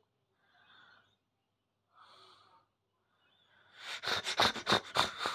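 Angry domestic cat hissing: a few faint, breathy hisses about a second apart, then about four seconds in a loud run of sharp, spitting hisses.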